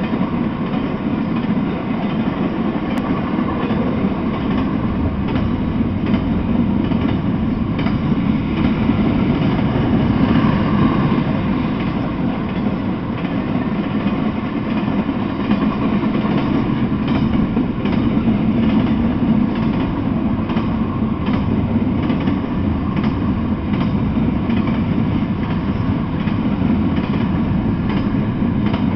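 Freight train of intermodal well cars rolling past at close range: a steady rumble of steel wheels on rail, with faint clicks now and then.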